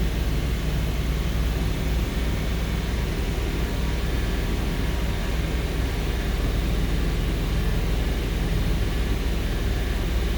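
2002 Toyota Sequoia's 4.7-litre V8 running steadily, held at about 2,500 RPM, while the owner chases a misfire with the check engine light on.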